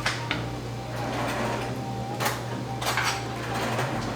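A whisk clinking against a bowl while mixing a liquid marinade, with a few irregular clinks rather than a fast steady beat.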